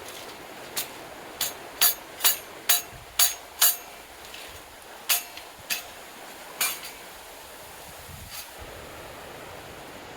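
A series of sharp knocks with a short metallic ring, six in quick succession at about two a second, then a few more spaced out, the last near the end, over the steady rush of a stream.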